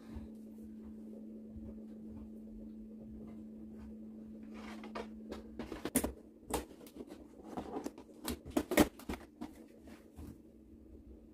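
A steady low hum that cuts off about five and a half seconds in, followed by a run of sharp clicks and knocks from things being handled, the loudest about six and nine seconds in.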